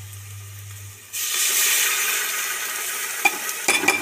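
Tomato puree poured into hot oil and fried onions in an aluminium pressure cooker, bursting into a loud sizzle about a second in that slowly eases off. A few sharp clinks come near the end.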